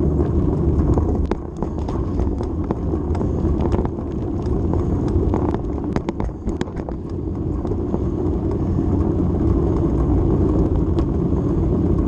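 Steady wind rush and rumble from riding a small open vehicle over asphalt, with scattered clicks and rattles, most of them in the first half.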